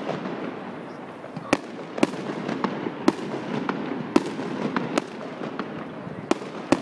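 Aerial fireworks display: shells bursting overhead in a string of about seven sharp bangs, roughly one a second, with fainter pops and crackles between them.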